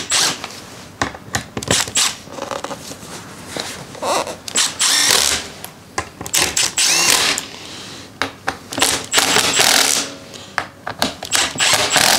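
Cordless screwdriver running in several short bursts with clicking, driving bolts into a motorcycle's rear tray and snugging them up part-way rather than to full torque.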